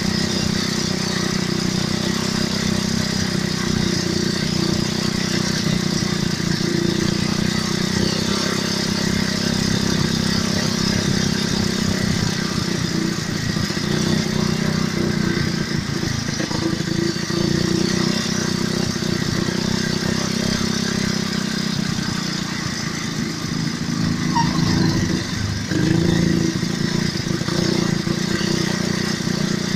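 ATV (quad bike) engines running steadily while being ridden, the engine note wavering a little with the throttle.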